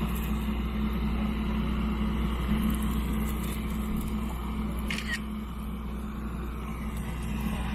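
Steady low hum of the Kushiro Shitsugen Norokko train's diesel locomotive idling while the train stands, with a brief high chirp about five seconds in.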